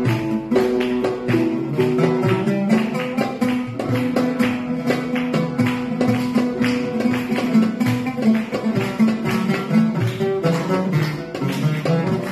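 A plucked string instrument picking a quick melody in rapid, even notes, over a held low note.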